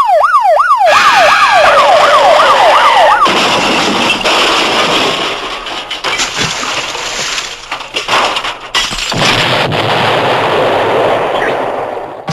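Cartoon sound effect: a siren-like whistle swooping rapidly up and down, about three times a second, for the first three seconds, then a long, dense crashing and clattering racket that fades out near the end.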